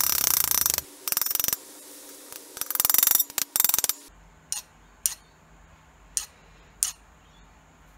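Rapid runs of light hammer taps on the domed steel head of a carriage bolt held on an anvil, peening the head to make it look old and hand-made. After about four seconds, four single sharp clicks follow, spaced out.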